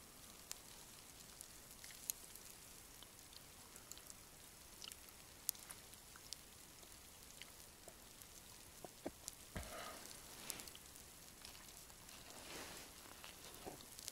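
Near silence with scattered faint ticks and crackles, and a soft thump about ten seconds in.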